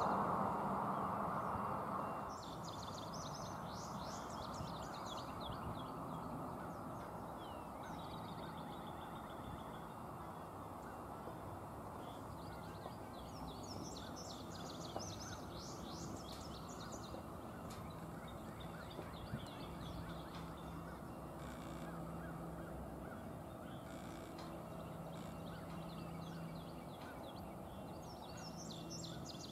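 Distant CSX diesel freight locomotives approaching, a faint low rumble with a steady engine drone, while birds chirp in bursts several times.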